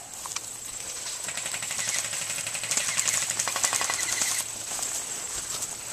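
Airsoft guns firing on full auto: a rapid stream of sharp clicking shots that builds over a couple of seconds and stops abruptly about four and a half seconds in.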